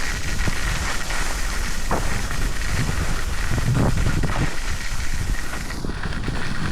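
Skis scraping and carving down a packed, icy snow slope, with wind buffeting the microphone as a steady low rumble.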